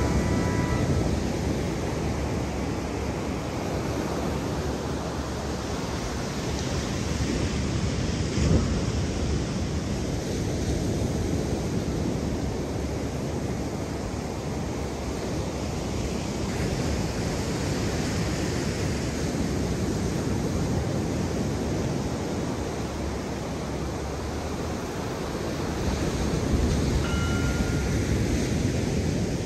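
Ocean surf washing steadily on the beach, with wind on the microphone, swelling and easing slowly. There is a single sharp knock about a third of the way in, and short electronic beeps at the start and again near the end.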